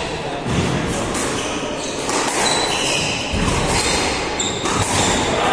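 Squash rally: the ball smacking off racquets and the court walls, with shoes squeaking in short high chirps on the wooden floor.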